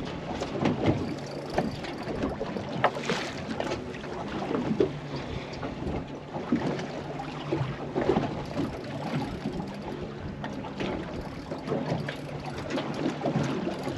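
A boat's outboard motor idling with a steady low hum, while water slaps against the hull in irregular knocks and splashes and wind buffets the microphone.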